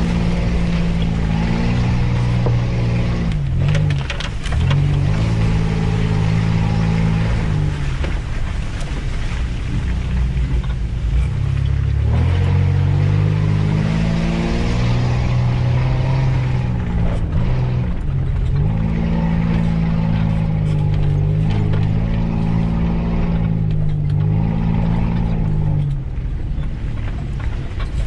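Off-road 4x4's engine running under load on a muddy track, its revs falling and rising several times as it works through the ruts.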